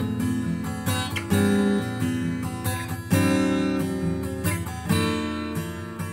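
Background music: an acoustic guitar strumming chords, with a new strum every second or two.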